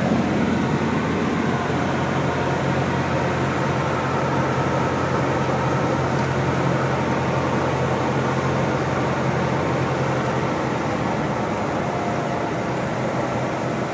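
Cabin noise of a single-engine high-wing light aircraft on approach: a steady propeller-engine drone mixed with airflow noise, heard from inside the cabin. The drone eases a little in the last few seconds.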